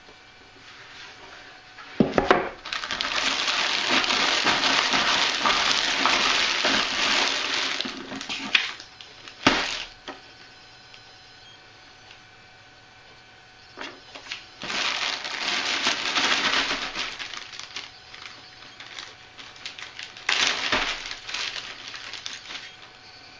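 Clear plastic bag of jigsaw puzzle pieces crinkling as it is handled, in three stretches, the first and longest lasting about six seconds. A knock of the cardboard puzzle box comes about two seconds in.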